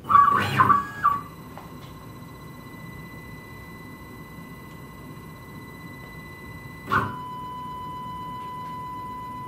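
CNC router's stepper motors whining at a steady pitch as the machine moves the bit down onto a touch plate in a probing routine. There is a louder burst in the first second, and a click about seven seconds in.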